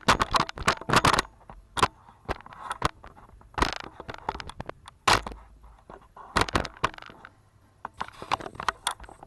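Scattered raindrops striking a hard surface close to the microphone: irregular sharp taps, thickest in the first second, then sparse single taps.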